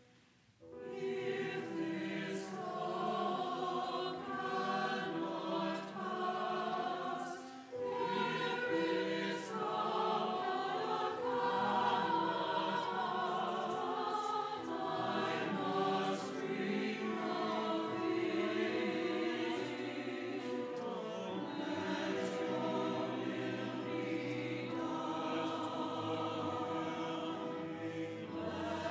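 A church choir singing, starting about a second in after a brief pause, with a short break in the phrase a few seconds later.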